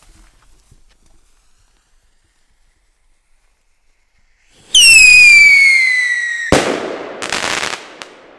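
Trueno firework rocket launching: a faint fizz of the burning fuse, then a loud whistle that falls steadily in pitch for about two seconds as the rocket climbs. It ends in a sharp bang, followed by a short rush of crackling noise.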